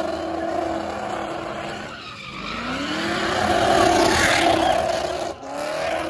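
Car doing donuts: engine held at high revs under wheelspin with tyres squealing and scrubbing on the pavement. The revs sag about two seconds in and climb back, loudest near four seconds, with a brief cut just before the end.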